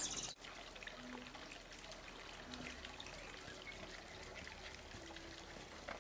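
Faint steady hiss of outdoor background noise, with a brief dropout about a third of a second in.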